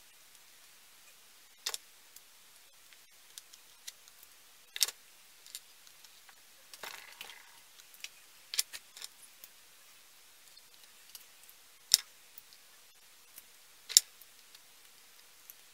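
Scattered sharp clicks and taps from paint tubes being handled, capped and set down, with the two loudest knocks near the end; a brief rustle about seven seconds in.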